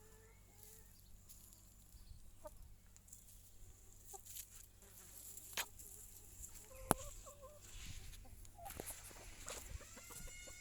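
Chickens clucking softly in short, scattered calls, with two sharp clicks, the louder one about seven seconds in.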